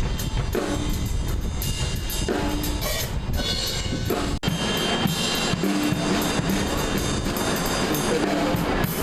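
Live amplified rock band playing during a sound check, led by a drum kit with bass drum and snare hits and short pitched instrument notes. The sound cuts out for an instant about halfway through.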